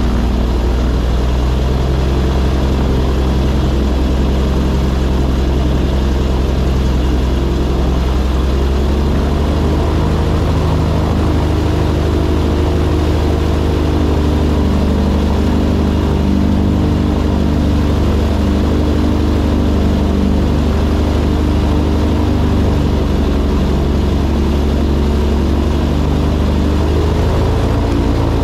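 Airboat engine and propeller running at speed, a loud steady drone that rises slightly in pitch about nine seconds in.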